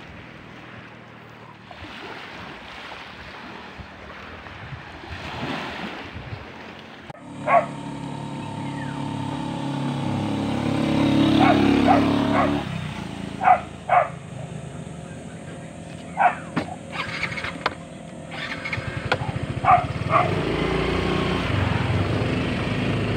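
A dog barking in short, repeated barks, starting about seven seconds in, over the hum of a passing road vehicle that swells and fades.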